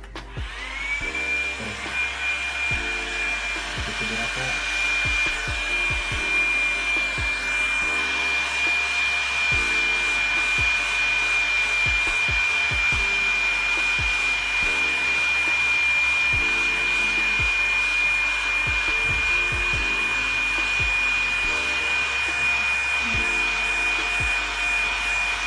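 Electric heat gun switched on and running steadily. Its motor whine rises to a constant high pitch within the first second, over the rush of blown air, as it heats screen-printing ink on a T-shirt to above 150 degrees to dry it.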